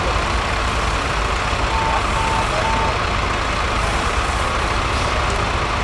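Heavy truck engine running steadily under a constant rush of noise, with three short, evenly spaced high beeps about two seconds in.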